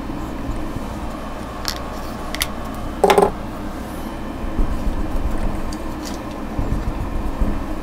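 Dry-erase marker writing on a whiteboard: a few short scratchy strokes, the loudest about three seconds in, over a steady low hum.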